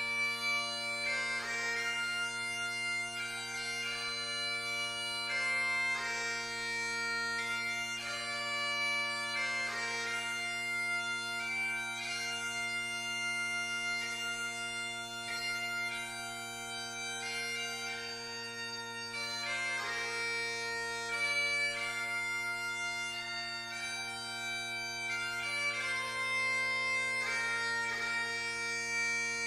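Bagpipes playing a melody on the chanter over steady, unbroken drones.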